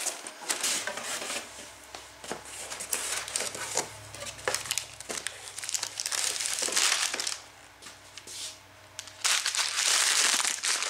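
Brown packing paper crumpling and rustling as parts are unwrapped from a cardboard box, with scattered handling clicks and knocks. The crinkling grows dense and loud near the end.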